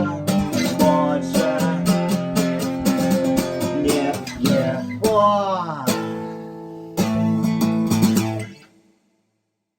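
Acoustic guitar strummed and picked, with a note that slides down in pitch about five seconds in. A fresh chord comes in at about seven seconds and is cut off suddenly about a second and a half later.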